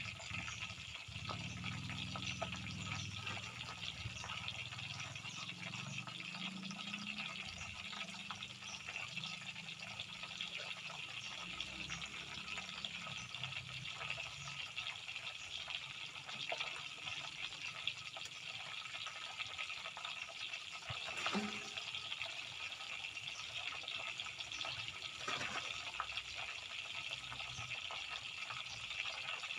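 Tofu deep-frying in hot oil: a steady sizzle with fine crackling.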